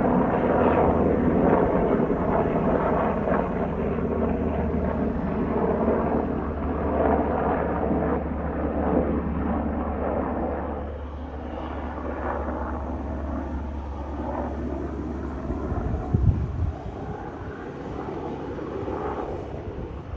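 Helicopter flying by: a steady low drone of engine and rotor noise that grows fainter about halfway through. The low hum stops with a brief thump near the end.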